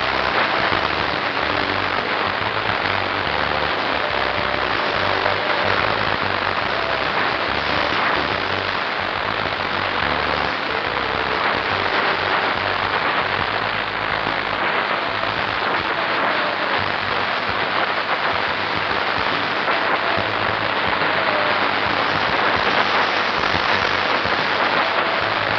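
A steady, even hiss like heavy rain falling, unchanging throughout.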